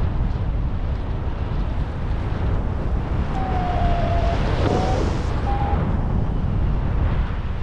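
Airflow buffeting the microphone in flight under a paraglider, a steady rush. A few brief, faint, slightly falling tones come through it near the middle.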